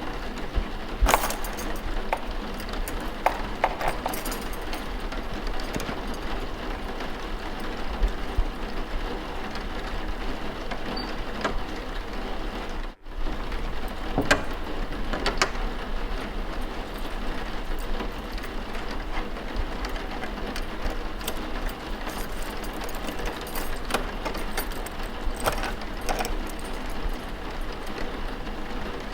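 Steady rain with scattered light clicks and knocks, part of a layered room ambience. The whole sound cuts out for an instant about 13 seconds in.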